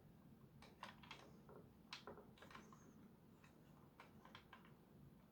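Faint, irregular clicks and taps of plastic parts being handled while a Nerf Gatling blaster is taken apart.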